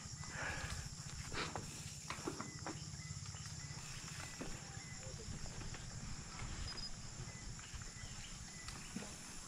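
Mountain bike rolling along a sandy dirt track: tyres crunching over sand and grit, with scattered clicks and rattles from the bike over a steady low rumble.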